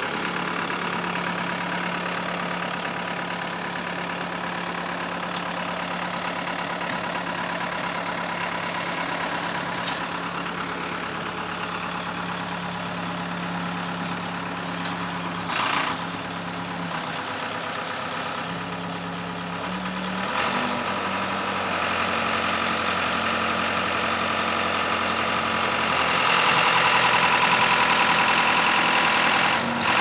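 Case 580 CK backhoe's engine running steadily while the backhoe is worked. It has one short knock about halfway, then steps up to a higher engine speed about two-thirds of the way in and runs louder near the end.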